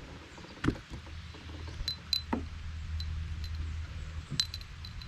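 Handling a freshly landed fish and tackle in a fishing boat: a sharp knock, a short falling squeak and a scatter of light clicks over a low steady hum.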